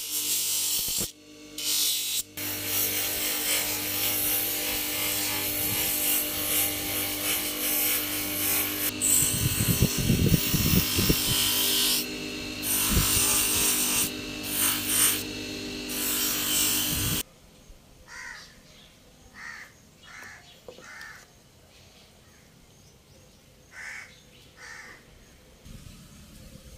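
A bench grinding wheel running with a coconut shell pressed against it: a harsh rasping grind over a steady motor hum, dropping away briefly a few times as the shell comes off the wheel. About two-thirds of the way through it cuts off suddenly, leaving a quiet background where a bird calls several times in short calls.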